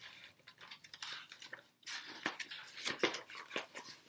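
Paper page of a picture book being turned and handled, a run of crisp rustles and crackles that is heaviest about two to three seconds in.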